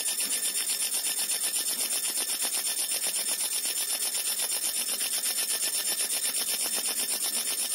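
Fiber laser marking machine cutting brass sheet: a steady high-pitched buzz from the laser working the metal, pulsing about ten times a second.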